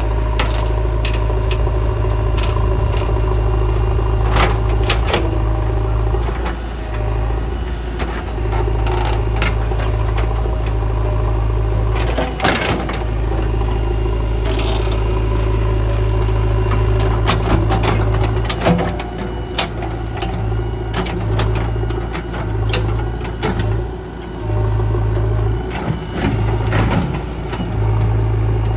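JCB 3DX backhoe loader's diesel engine running under changing load while dozing, its sound dipping and picking up again several times, with scattered clanks and rattles.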